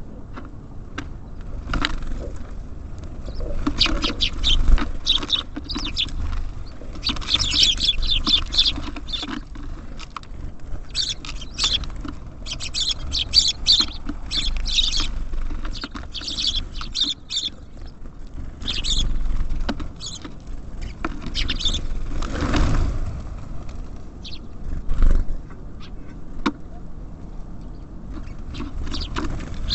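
Small songbirds at a feeder chirping and calling in quick, busy clusters, with a low rumble underneath and a couple of louder sudden sounds about three-quarters of the way through.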